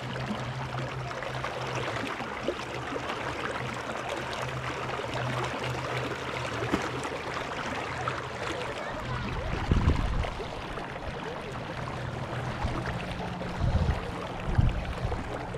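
River water flowing and rippling steadily. A few short, low rumbles break in about ten seconds in and again around fourteen seconds.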